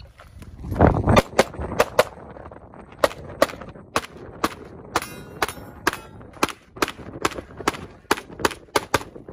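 Handgun shots fired in quick succession during a stage, about twenty in all, coming two to three a second, often in pairs. A low rushing noise hits the microphone about a second in.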